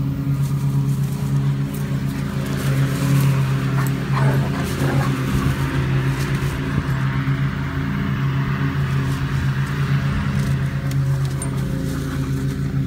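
A small engine drones steadily in the background while two dogs play-fight, with scuffling, rustling and dog noises strongest in the middle of the stretch.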